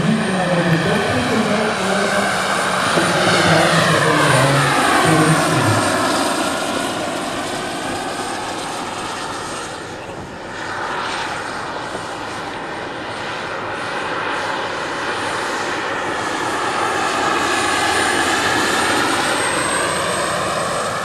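Turbine-powered scale model Mil Mi-24 helicopter in flight, its turbine whine and rotor sound running continuously. The whine drops in pitch as the helicopter passes, about four seconds in, and dips again near the end.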